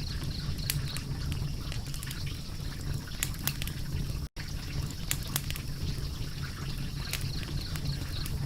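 Crackling wood fire: irregular sharp pops and snaps over a steady low rumble of flames. The sound cuts out for a split second about four seconds in.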